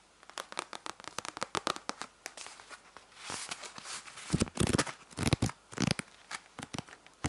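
Pages of an old paper album riffled and handled close to the microphone: a quick run of sharp ticks, then louder rustling and rubbing from about three seconds in, and a few more ticks near the end.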